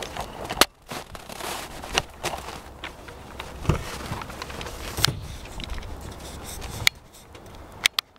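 Footsteps crunching on packed snow, with scattered sharp clicks. Near the end come two quick clicks as a minivan's front door is opened.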